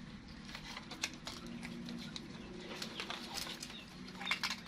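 Pet monkeys eating crisp rice cakes: scattered crunching and crackling from the rice cakes and their crinkly wrappers, bunched a little after three seconds and again near the end, over a steady low hum.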